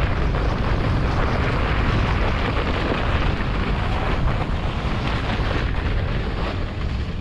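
German Luge 115 sled running fast down a snow track: a continuous rough scraping of its runners over the snow, with wind buffeting the microphone.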